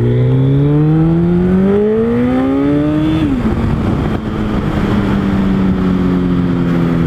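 Suzuki Hayabusa's inline-four engine accelerating, its pitch rising steadily for about three seconds, then dropping sharply as it shifts up a gear and running on at a steadier, slowly falling note, with wind rush over the microphone.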